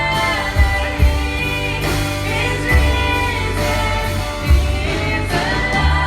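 A congregation and worship band singing a slow Christian worship song: voices holding long notes over bass and drums.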